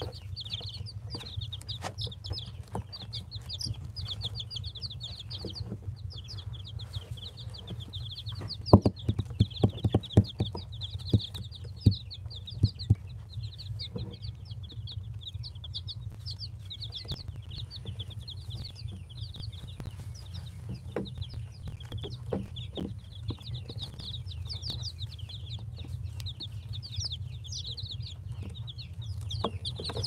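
A brood of baby Aseel chicks peeping continuously, many short, high, falling calls overlapping. A run of sharp taps stands out about a third of the way in, over a steady low hum.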